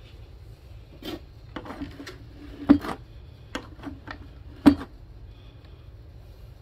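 Irregular knocks and clicks of wood and metal hardware on a homemade cable-pulled chicken coop door with spring-loaded latch arms, two sharper knocks about two seconds apart with a brief ring, over a low steady hum.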